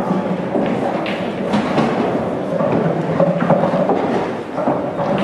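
Steady murmur of many indistinct voices in a large hall, with a few short knocks.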